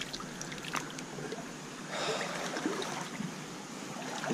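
Shallow creek water running over rocks, an even rush of water noise with a few small clicks, swelling briefly louder about two seconds in.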